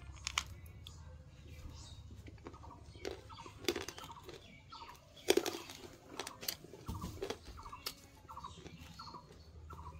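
Domestic fowl giving short soft calls, repeating about once or twice a second from about six seconds in, among irregular light clicks and taps, with one sharper knock about five seconds in.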